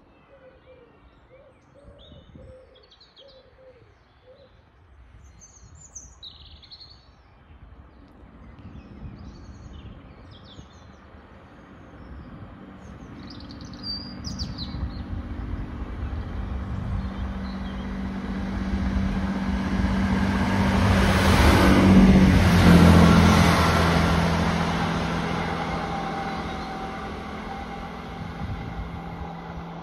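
Class 165 diesel multiple unit approaching and passing below: its engine hum grows steadily, is loudest about two-thirds of the way in, dropping in pitch as it passes, then fades as it draws away. Birds chirp over the first half.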